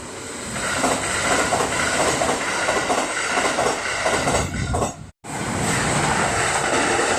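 Kintetsu Osaka Line electric train passing over a level crossing, its wheels clattering over the rail joints. The sound breaks off for a moment about five seconds in, then carries on.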